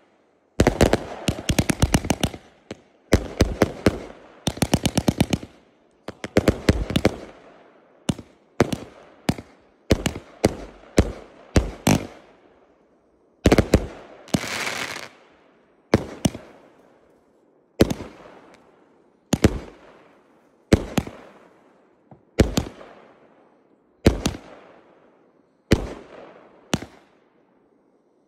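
Consumer firework cake (multi-shot battery) firing. The first seven seconds bring rapid volleys of bangs and crackle, then single shots about one and a half seconds apart, each bang trailing off in an echo.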